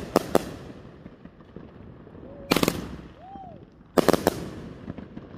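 A box of consumer aerial fireworks (a firework cake) firing shells that burst overhead. Three clusters of sharp bangs come right at the start, about two and a half seconds in, and about four seconds in, with a short rising-and-falling whistle just before the last.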